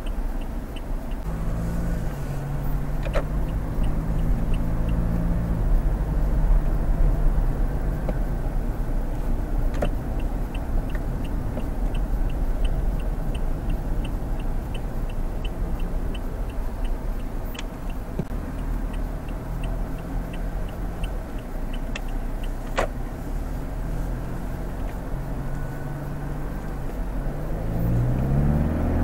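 Inside the cabin of a 2022 Toyota Fortuner GR-S, its 2.8-litre four-cylinder turbo-diesel hums steadily over road rumble as it drives through the city. A turn-signal indicator ticks about three times a second in two stretches. Near the end the engine pitch rises as the SUV accelerates.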